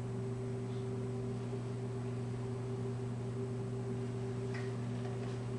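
Steady low electrical-sounding hum with a faint hiss: room tone, with no other clear sound.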